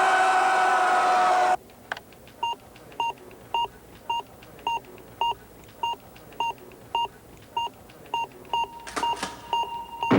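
A loud electronic tone, its pitch sliding slightly down, cuts off about a second and a half in. Then short high electronic beeps come about twice a second and crowd together near the end into a held tone.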